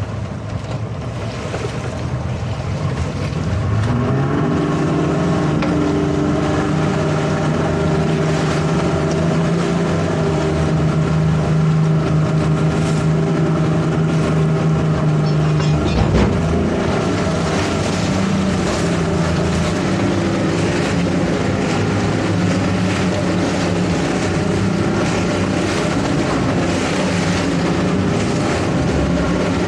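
A towboat's twin outboard motors throttling up over the first few seconds, then running hard and steady under load as they pull a grounded keelboat off the bottom, with the wake rushing behind. About halfway through, the engine note dips briefly with a thump, then settles again.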